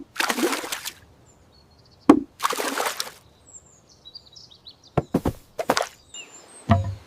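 Cartoon sound effects of water splashing: two longer splashes, then three quick ones, with faint bird chirps in the gaps.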